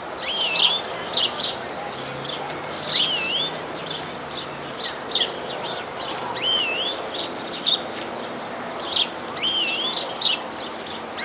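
European greenfinch singing: runs of short twittering chirps broken by a looping whistle that dips and rises, recurring about every three seconds, over a steady background hiss.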